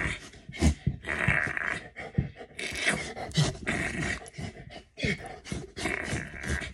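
A dog play-growling and huffing in repeated short bursts while it wrestles on its back, with rustling and light bumps from the rough play.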